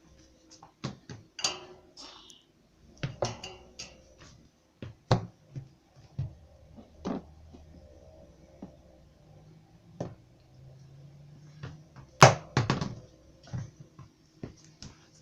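Irregular knocks, thuds and clatter, about a dozen scattered hits, the loudest a sharp bang about twelve seconds in.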